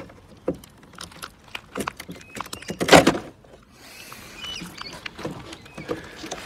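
Plastic clicks and knocks as a BMW E92 3 Series tail light unit is worked loose and pulled out of the car body, with one louder clunk about three seconds in and a few short plastic squeaks a little later.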